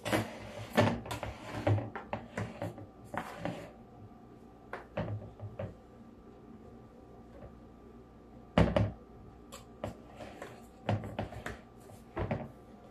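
Silicone spatula scraping cake batter out of a plastic mixing bowl into a bundt pan, with scattered taps and knocks of bowl and spatula; one sharp knock about two-thirds of the way through is the loudest.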